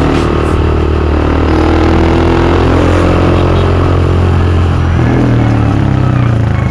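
Rusi Classic 250 motorcycle engine running under way at a steady low speed, its note rising slightly about five seconds in.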